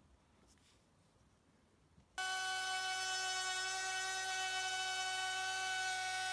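DeWalt D26204K compact router motor running at speed, a steady whine of several fixed tones over a low hum, starting suddenly about two seconds in after near silence.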